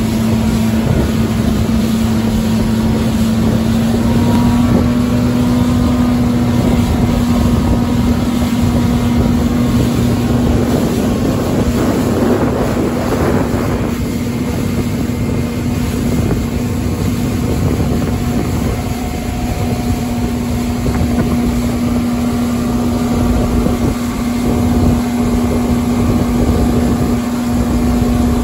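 Outboard motor running steadily on its first run after repairs, driving the boat along at speed with an even hum that rises slightly a few seconds in. Water rushes along the hull and wind buffets the microphone.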